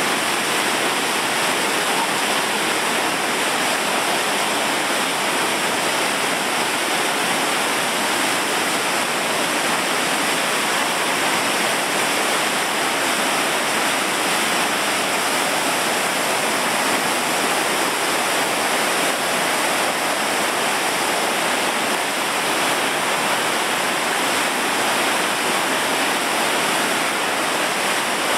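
Floodwater of a flash-flooded creek rushing and churning through a stone-walled channel: a loud, steady rush of white water.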